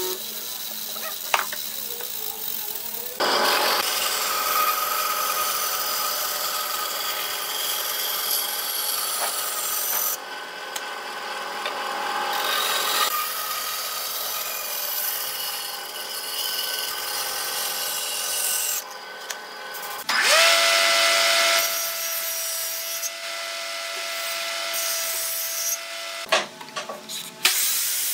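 Woodworking power tools cutting pine timber in a run of short takes that change abruptly: a hollow-chisel mortising machine at work, then a band saw cutting. A machine holds a steady whine from about 20 to 26 seconds in.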